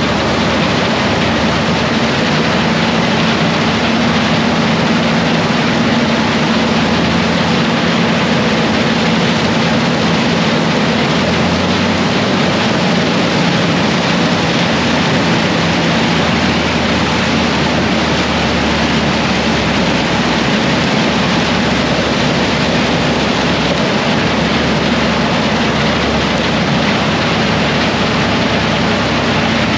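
Farm tractor pulling a grain cart, its engine running steadily under load: a loud, even drone with a low hum underneath.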